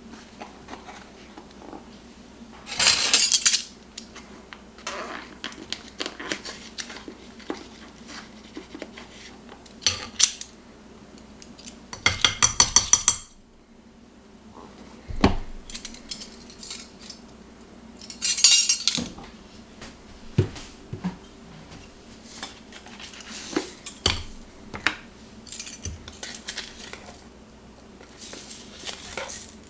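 Dishes and metal utensils clinking and scraping, with scattered clicks and a few short clattering bursts, including a quick run of rapid strokes about twelve seconds in. A faint steady hum runs underneath.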